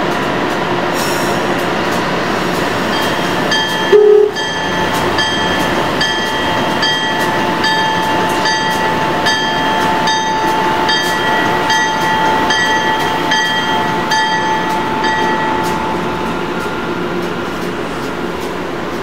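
Amtrak AEM-7 electric locomotive train at the platform: a short horn toot about four seconds in. Then a ringing strike repeats evenly, a little under once a second, for about twelve seconds, over a steady whine and the rumble of the train.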